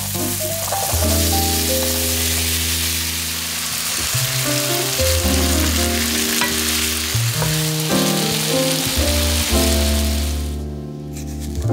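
Diced raw potatoes sizzling as they fry in hot oil in a pan, a steady hiss that stops near the end.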